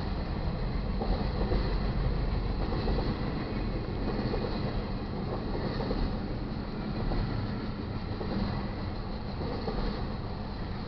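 Freight train rolling past, a steady rumble of the cars on the rails.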